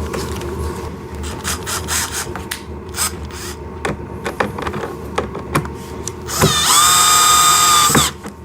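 Scattered clicks and rattles of small screws and plastic parts being handled, then a power drill spins up about six seconds in and runs steadily for about a second and a half before stopping sharply, driving a screw to fix the front bumper.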